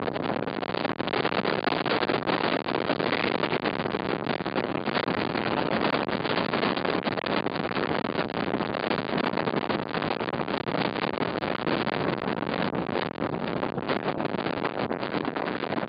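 Strong wind buffeting the microphone: a loud, steady rushing noise with frequent small crackles.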